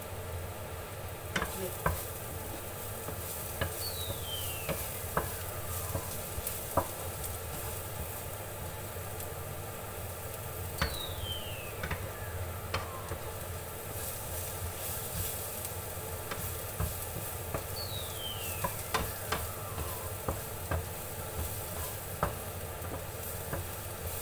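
Minced garlic sizzling as it fries in oil in a nonstick frying pan, while a wooden spatula stirs and scrapes it and now and then knocks sharply against the pan.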